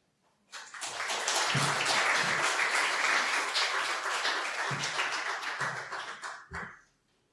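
A congregation applauding: many hands clapping. It starts about half a second in, holds steady, and dies away near the end.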